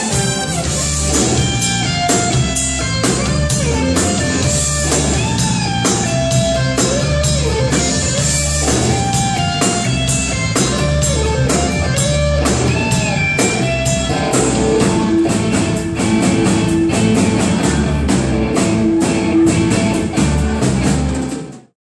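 Live instrumental rock from a guitar, bass and drums trio: electric guitar playing a lead line with gliding, bending notes over bass and drum kit. The music cuts off suddenly near the end.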